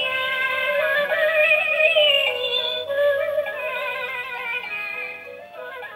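Electronic music of pitched, wavering synthetic tones that shift from note to note, getting gradually quieter over the second half.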